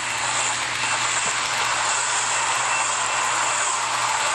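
HO scale model freight train rolling past close by: a steady rushing of the cars' wheels on the track, with a faint low hum underneath.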